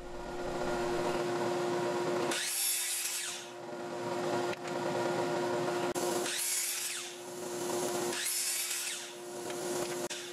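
DeWalt sliding miter saw running with a steady whine, its blade cutting down into 3/4-inch plywood three times, about a second each, to make slot cuts in the edge of a plate.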